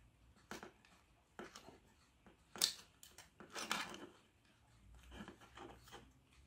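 Hands prying at a white 3D-printed PLA bracket to pop its printed pieces out: a scatter of small plastic clicks and scrapes, with the sharpest snap about two and a half seconds in and a longer scrape just after.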